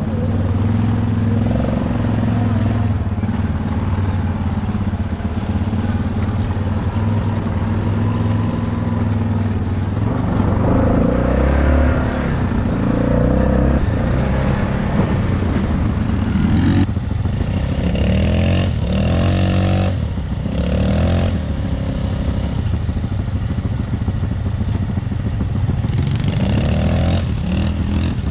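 Dirt bike engine running steadily under load, its pitch rising and falling with the throttle, with a few quick rising revs a little past halfway.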